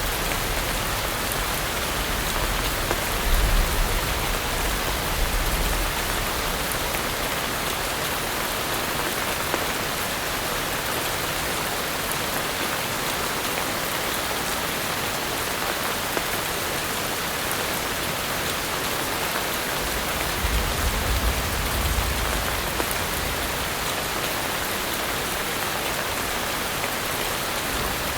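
Steady heavy rain pouring down in a dense, even hiss. A low rumble swells briefly a few seconds in and again about three quarters of the way through.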